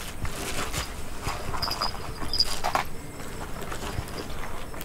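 Rohu feeding at the water surface among grass stems: irregular wet smacks, sucks and small splashes as the fish mouth at the surface and the groundbait clinging to the grass, busiest in the first three seconds.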